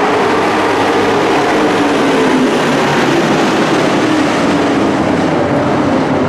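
Engines of a pack of stock-truck dirt-track race cars running at speed around the oval, a loud, steady blend of many engines.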